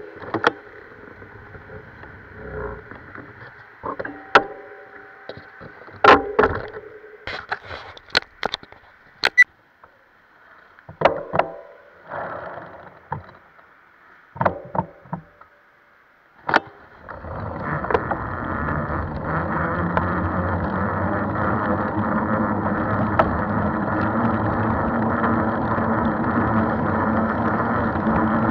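Scattered knocks and rattles from a bicycle on the move. A little over halfway through, a steady rush of wind on the microphone and tyre noise sets in and stays loud.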